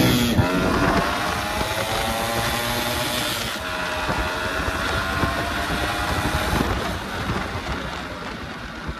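Yamaha RX135's two-stroke single-cylinder engine accelerating hard through the gears, its pitch rising and dropping back at each upshift, about half a second in and again about three and a half seconds in. Near the end the engine eases off and wind on the microphone comes forward.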